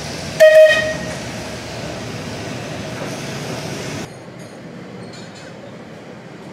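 Heritage tram running on the street track with a steady rumble. About half a second in, a warning gong gives one loud ringing note that fades within about half a second. The running noise drops off suddenly at about four seconds.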